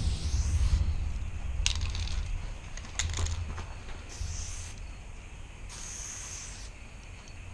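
Aerosol spray-paint can hissing in three short bursts as paint is sprayed onto concrete, with a few sharp clicks between the bursts and a low rumble underneath.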